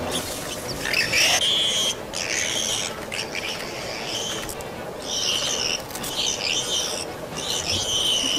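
A series of short, high-pitched animal calls or squeals, about one a second, the first one rising in pitch.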